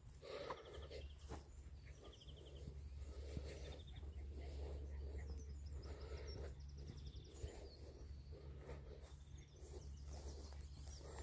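Faint outdoor birdsong, with short high trills and chirps, over soft regular low thuds about once a second and a steady low rumble.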